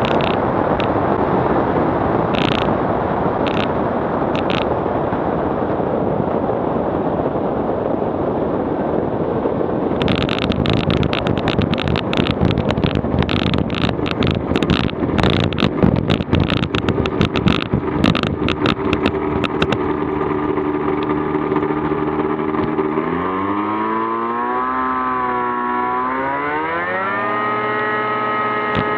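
Merlin PSA light sport aircraft's engine and propeller with rushing wind as it lands. From about ten seconds in, a rapid crackle of spray and mud hitting the airframe as it rolls through the flooded grass. Near the end the engine note rises steeply in pitch and holds as the throttle is opened.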